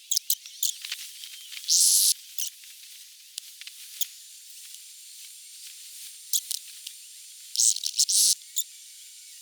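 Aerosol lubricant spray fired in two short hissing bursts, about 2 s in and again near the end, with small clicks between them. The spray is being shot into a sticking, rusty gear bearing in a 12 V winch gearbox to free it up.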